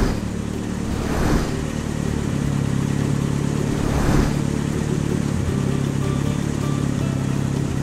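Cartoon toy-car engine sound effect: a steady low motor hum as the car drives, with three brief whooshing swells, near the start, about a second in and about four seconds in.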